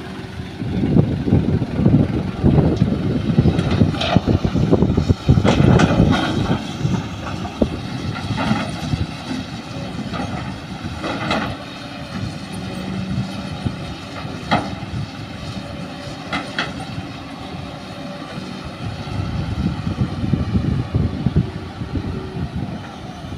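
Diesel engines of a hydraulic excavator and dump trucks running steadily, louder in the first few seconds. About half a dozen sharp knocks and clanks come every few seconds.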